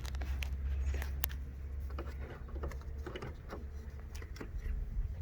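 Rubber hose being handled and routed around the engine bay: scattered light clicks, knocks and rubbing, over a steady low rumble.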